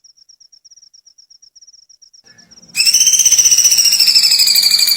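Recorded bird call: a faint, very fast, high trill, then about three seconds in a loud, fast, buzzy trill that slowly drops in pitch.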